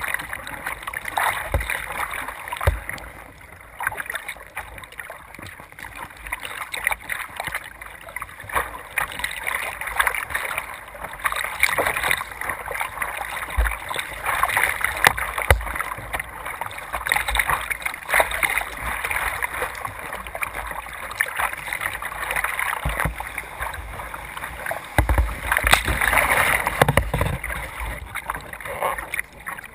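Water rushing and splashing along a surf kayak's hull as it rides breaking waves, heard from the bow, swelling and fading with the surf and loudest near the end. Occasional low thumps break in.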